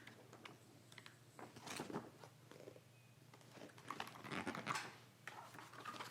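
Paper rustling and light handling noises as the pages of a rule booklet are leafed through.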